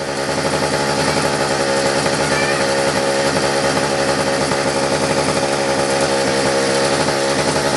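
A mini moto's small two-stroke engine running steadily at idle with the choke off, warmed up after a pull start.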